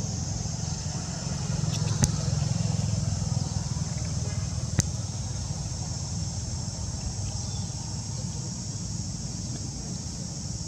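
A steady low engine rumble, like a motor vehicle running nearby, under a constant high-pitched drone. Two sharp clicks come about two and five seconds in, and the rumble eases slightly near the end.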